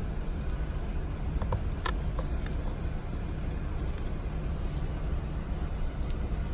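Steady low rumble of a car driving, heard from inside the cabin, with a few faint clicks about a second and a half to two and a half seconds in.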